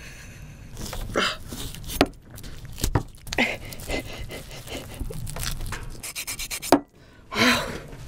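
Raw, partly frozen tuna head being pried and torn apart with rubber-gloved hands: irregular rubbing and scraping of glove on skin and flesh, with a few sharp clicks and straining breaths.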